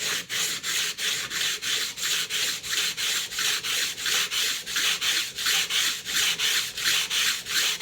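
Rapid back-and-forth rubbing on a soaked 1000-grit King whetstone, about four even strokes a second, with a gritty scraping sound.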